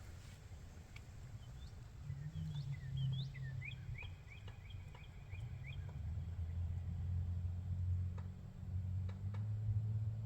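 A small songbird chirping: a run of short, high, quick notes about two to six seconds in. Under it a steady low hum runs on and grows louder in the second half.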